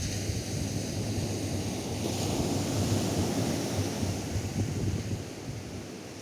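Atlantic surf: a wave breaks and washes up the beach, swelling about two seconds in and fading near the end, with wind buffeting the microphone.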